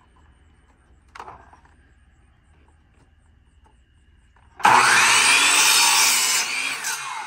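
Electric compound miter saw starting up about four and a half seconds in and cutting through a pressure-treated board, its motor whine falling away near the end. A short knock about a second in.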